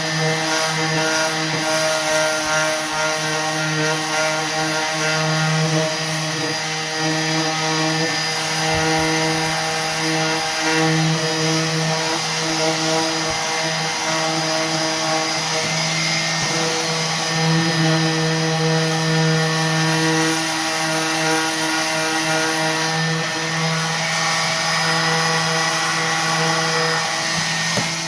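Electric orbital sander running steadily while it sands painted wood furniture edges, a loud constant motor hum with the hiss of sandpaper rubbing off paint to distress the finish.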